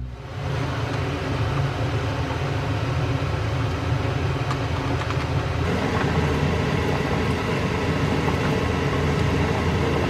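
Tteokguk (Korean rice cake soup) boiling hard in a pot, a steady rumbling bubbling.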